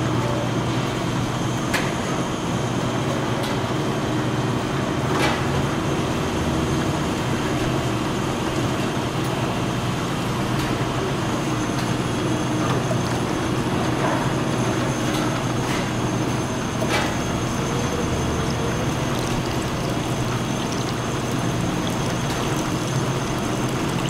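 Automatic bottle-filling machine running: a steady mechanical hum with a thin high whine over it and a few sharp clicks scattered through.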